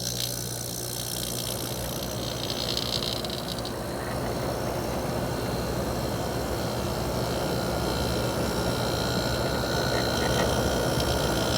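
1990 GE 12,000 BTU window air conditioner, Panasonic-built, running on cool just after start-up: its Matsushita rotary compressor hums steadily under the rush of the fan.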